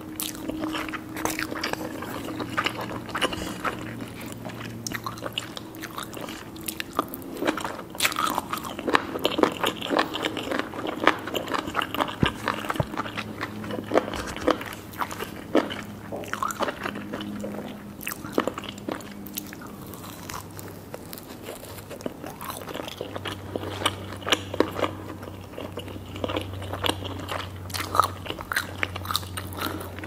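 Close-miked eating sounds: chewing cheese-topped spicy instant noodles and biting into a skewered fish stick, with many small crunchy clicks.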